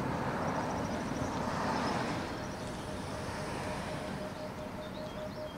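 Steady rush of water from a waterfall, easing slightly after about two seconds.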